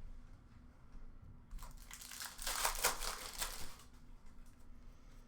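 An Upper Deck hockey card pack wrapper being torn open and crinkled, a burst of crackling starting about a second and a half in and lasting about two seconds.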